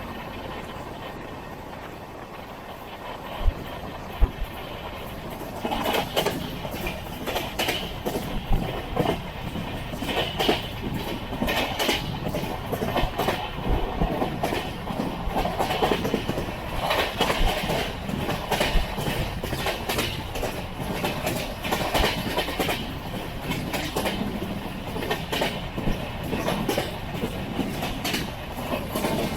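Passenger train coach running along the track, its wheels clattering over the rail joints in a clickety-clack rhythm. The clatter grows louder from about six seconds in, after two brief low thumps.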